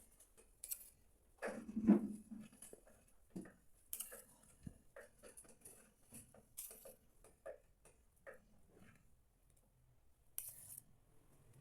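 Scattered light taps and clicks of hands and a utensil working soft, sticky bread dough in a bowl and onto a baking tray, with one duller knock about two seconds in.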